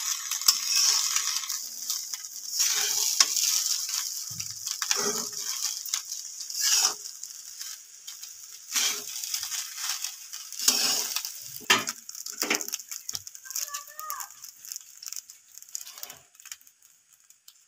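A spatula stirring and scraping fried rice around a hot metal pan in separate strokes every second or so, over the sizzle of oil. The sizzle is strongest in the first few seconds and thins out after that.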